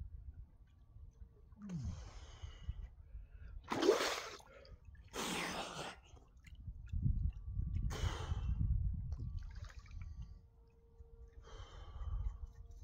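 Sea water splashing and a man's heavy breaths and gasps while he swims in cold water, in about five separate bursts a couple of seconds apart.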